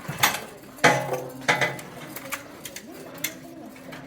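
Several sharp metal clanks and knocks, the loudest about a second in with a short metallic ring, from metal tools and parts being handled while a truck is stripped down.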